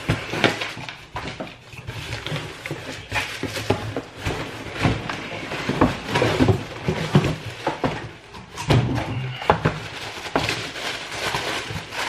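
Cardboard shipping box being torn open and handled by hand, with irregular rustling, scraping and short sharp knocks of cardboard as a shoe box is pulled out.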